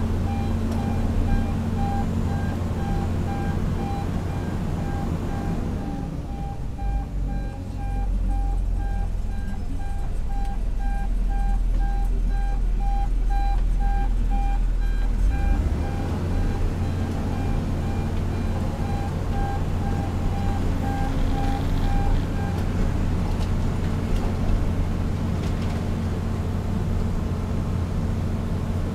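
Heavy diesel construction machinery, a rotary drilling rig and a tracked excavator, running steadily, with a machine's electronic warning alarm beeping regularly until about three quarters of the way through. For a stretch in the middle the drone turns deep and muffled, heard from inside the drilling rig's cab.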